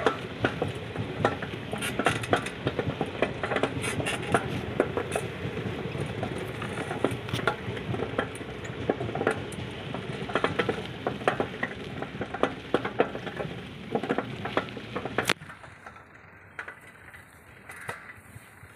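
Bicycle ridden over a rough dirt path: an irregular rattle and crackle of the bike and its tyres over the ground. It drops off sharply to a much quieter level about 15 seconds in.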